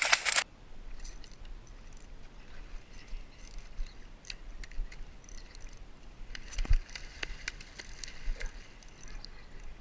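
Scattered faint clicks and light clinks over a low background hiss, with one sharper knock about two-thirds of the way through.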